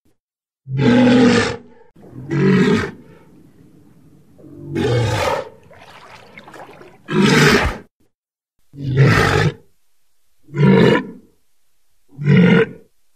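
Atlantic walrus calling: seven short, loud, pitched calls, one every second and a half or so, with a quieter low rumble running between the second and fourth calls.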